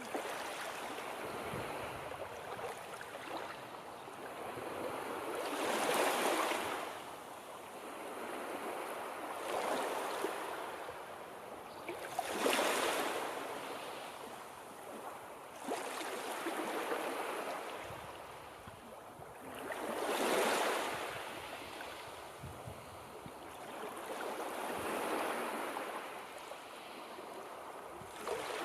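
Sea surf: waves breaking and washing in, the rushing rising and falling in swells every few seconds, with the loudest breakers about six, twelve and twenty seconds in.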